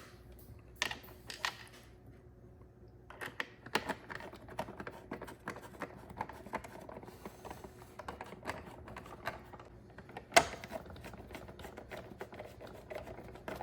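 A screwdriver driving screws back into the plastic housing of a Keurig K-Duo Essentials coffee maker: many small irregular clicks and taps of the tool and plastic parts, with one louder knock about ten seconds in.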